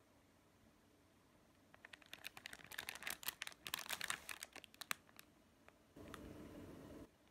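Thin plastic bread wrapper crinkling and crackling in a hand as the packaged bread is turned over, a dense run of sharp crackles for about three seconds. Near the end comes a steady low rushing noise lasting about a second.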